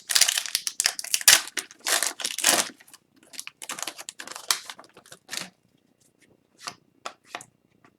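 Foil wrapper of a hockey card pack being torn open and crinkled, loudest in the first few seconds, then sparser, softer rustles of handling.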